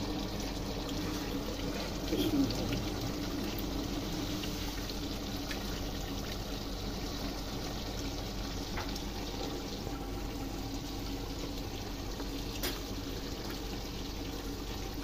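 Soaked rice and its water being poured from a plastic bowl into a large steel pot of boiling water, a steady watery pouring and bubbling, with a brief louder knock about two seconds in.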